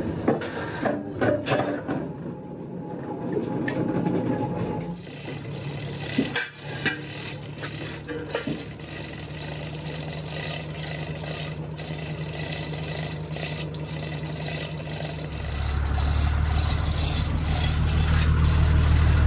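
Knocks, scrapes and rattles as a barge slung from a crane is handled. Then, from about five seconds in, the crane's engine runs steadily, getting louder about fifteen seconds in.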